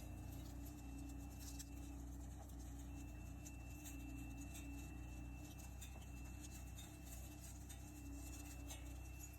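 Faint steady low drone of a machine engine running, with a thin high whine through most of it and a few light clicks.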